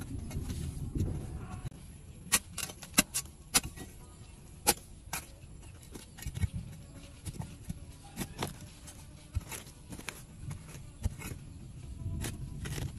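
Irregular sharp clicks and knocks over a low rumble, with a dense cluster of loud clicks a few seconds in.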